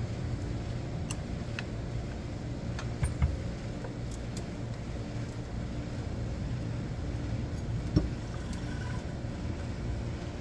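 Floor jack letting the rear axle down under the truck, with light metallic clicks and clinks and two knocks, about three seconds in and near eight seconds. A steady low hum runs underneath.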